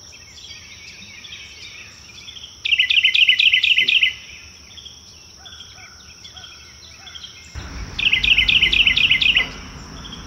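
A songbird singing two loud, fast trilled phrases, each about a second and a half long, with softer chirps between them, over a steady high-pitched whine. A low rumble comes in just before the second phrase.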